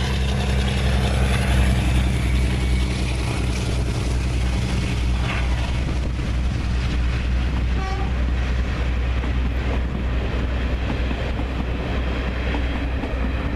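Two diesel-hydraulic locomotives, a Class 52 Western and a Class 42 Warship, with their twin Maybach engines running under load as they haul a passenger train past and away. Their steady low drone carries on while the coaches roll by.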